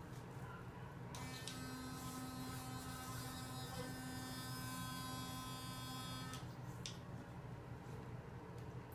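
Child's battery-powered electric toothbrush buzzing at a steady pitch while brushing teeth. It switches on about a second in and stops about five seconds later.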